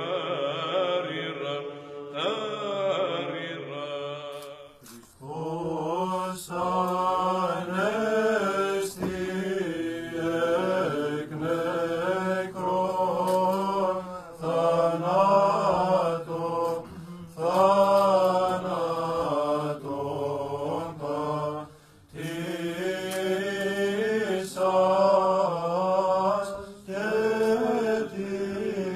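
Orthodox church chanting: a sung melody in phrases over a steady held drone, with short breaths between phrases.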